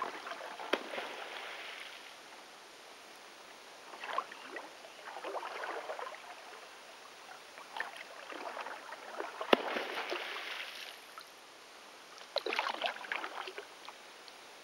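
Kayak paddle strokes: spells of splashing and dripping water every few seconds, each with small clicks. One sharp smack about two-thirds of the way through is the loudest sound.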